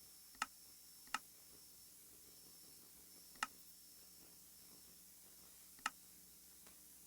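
Four short, sharp clicks at uneven intervals over faint steady hiss.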